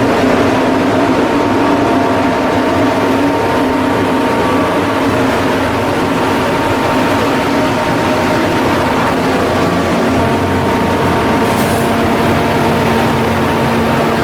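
Steady drone of heavy machinery running, with several held tones and no breaks.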